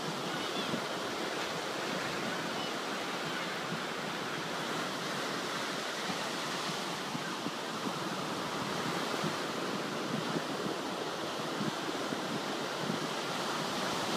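Ocean surf: waves breaking and foam washing up the sand in a steady rush.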